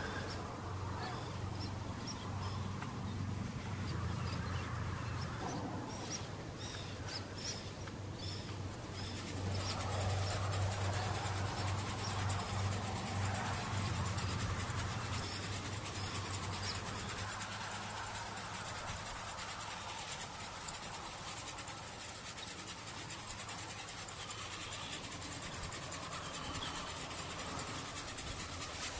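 Outdoor wetland ambience: a steady low hum, with small birds chirping again and again for the first several seconds. After about ten seconds a steady high hiss sets in and the hum fades by the second half.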